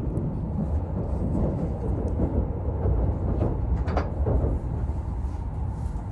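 Hokuriku Shinkansen (E7/W7 series) train running at speed, heard from inside the passenger car: a steady low rumble, with a few faint clicks about four seconds in.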